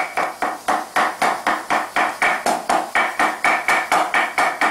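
A large kitchen knife chopping raw meat on a wooden block to mince it, in a steady rhythm of sharp strikes, about four a second, each with a short metallic ring from the blade.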